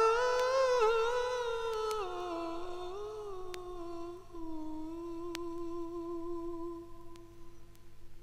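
A wordless sung melody from one voice, hummed or vocalised, gliding between notes with vibrato and then holding one long steady note that grows quieter. A few faint clicks sound through it.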